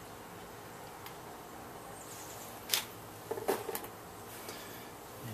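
Light clicks and taps from handling small brake parts while greasing a caliper guide pin: a single sharp click, then a short cluster of clicks about half a second later, over a faint steady hiss.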